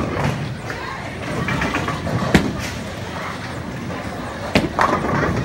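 Bowling alley din: balls rolling on the lanes and pins clattering, with a sharp knock about two and a half seconds in and two more near the end, over background chatter.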